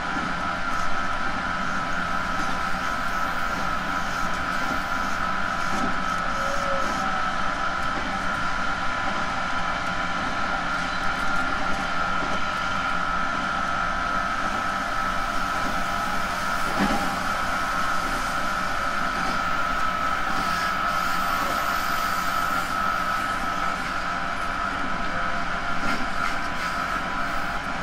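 A JR Central 311 series electric train running at steady speed on the rails, with a steady whine that neither rises nor falls over its running noise. One brief knock comes about two-thirds of the way through.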